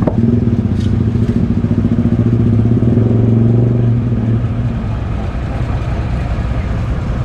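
Truck engine running steadily, its note easing off a little over four seconds in, with a sharp knock at the very start.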